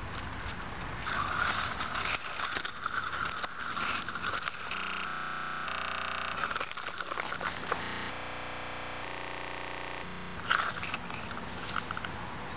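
Dry grass stalks rustling and crackling, with handling noise from a handheld camera among the grass. For several seconds in the middle the sound turns steady and warbled.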